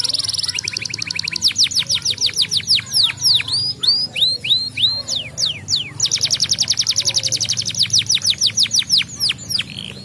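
Yellow domestic canary singing a long song phrase: fast trills of repeated high notes, then a lower trill, a run of quick downward-sweeping whistles and short rising notes, another fast high trill, and more falling sweeps near the end.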